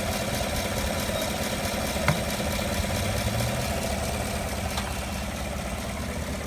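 A 2015 Chevrolet 5.3L V8 idling, with the loud, sporadic vacuum-like squeaking noise that comes and goes and has no traced cause. A single sharp tick sounds about two seconds in.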